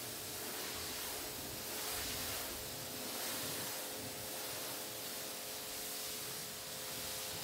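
Electric pressure washer spraying water onto a car's bodywork: a steady hiss of the jet, with a steady hum from the running machine underneath.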